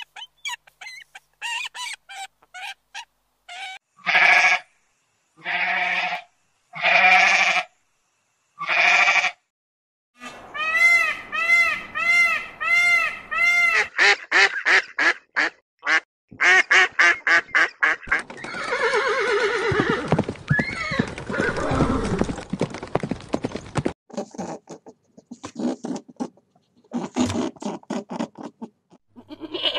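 A series of different animal calls, one after another: short calls at first, then four long drawn-out calls about a second and a half apart, then runs of quick repeated calls.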